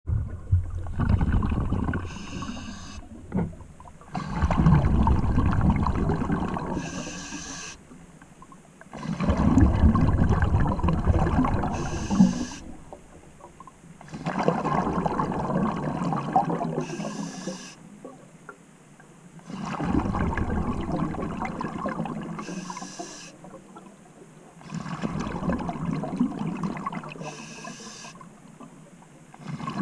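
Scuba diver breathing through a regulator underwater: a brief hiss of each inhalation, then a long low rush of exhaled bubbles, repeating about every five seconds for six breaths.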